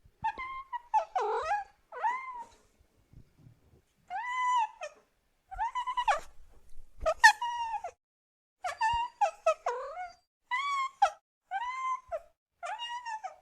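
Kitten meowing over and over: about a dozen short, high calls, each rising and then falling in pitch, with a pause of nearly two seconds a few seconds in.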